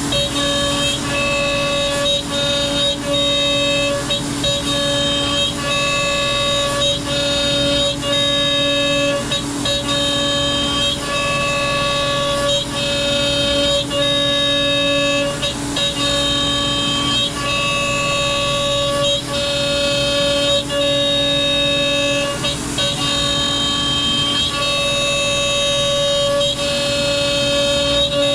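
Hobby CNC router running, a steady pitched whine from its spindle and stepper motors, with short dips and pitch changes every second or two as the machine changes moves while cutting wood.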